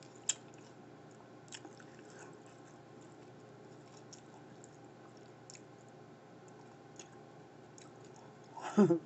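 Quiet chewing on a bite of deep-fried sushi burrito, with a few soft mouth clicks and one sharper click about a third of a second in. A brief vocal sound comes just before the end.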